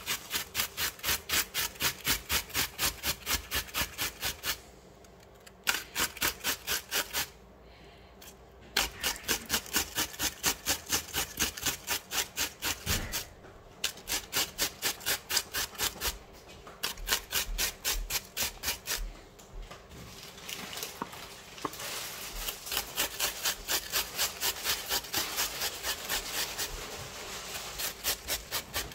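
Red onion being grated on a stainless-steel box grater: rapid rasping strokes, about three a second, with a few short pauses.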